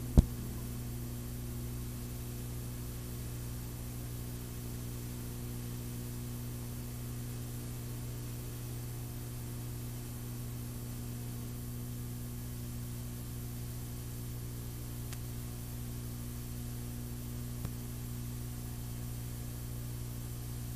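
Blank stretch of VHS tape playing: a steady low hum over a faint hiss, with one sharp click just at the start.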